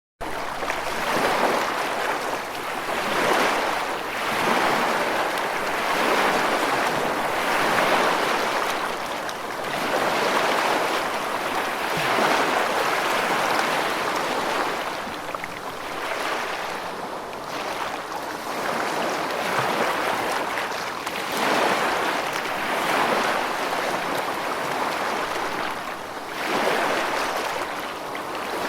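Ocean waves breaking and washing in, a continuous rushing that swells and eases every two seconds or so.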